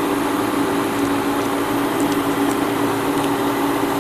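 Spray booth fan running with a steady hum, while masking tape is peeled off a painted plastic model part, giving a few faint ticks.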